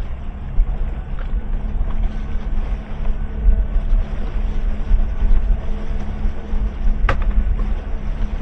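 Towboat's engine running steadily under way, with wind on the microphone and a deep rumble, and a single sharp click about seven seconds in.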